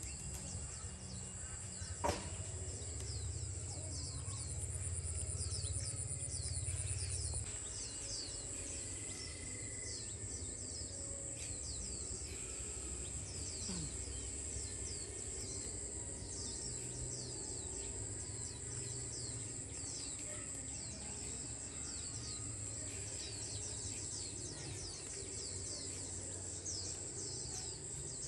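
Steady high-pitched insect drone with many short bird chirps over it, a sharp click about two seconds in, and a low rumble that stops about seven seconds in.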